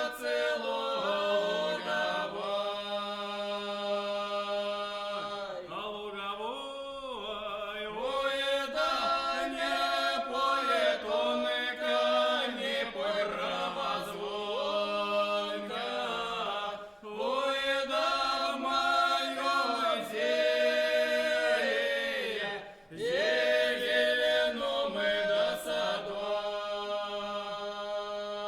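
Three voices singing a Russian lyrical folk song from the Kursk region a cappella in close harmony, with long held notes. The singing breaks off briefly for breaths about 6, 17 and 23 seconds in.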